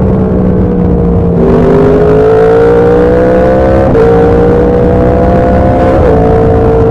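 Yamaha FZ-10's 998 cc crossplane inline-four engine pulling at road speed. Its pitch climbs under throttle, then dips briefly about four seconds and six seconds in as it shifts up.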